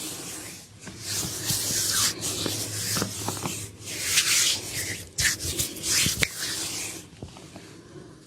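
Hands massaging a neck: palms rubbing over skin in several long strokes, about a second each, with a few short sharp clicks among them.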